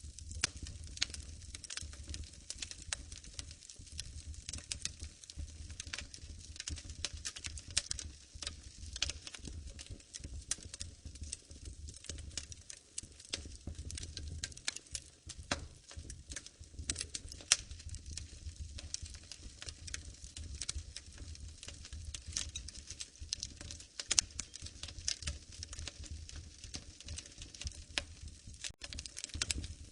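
Wood fire in a fireplace crackling, with frequent sharp pops and snaps scattered irregularly over a steady low rumble.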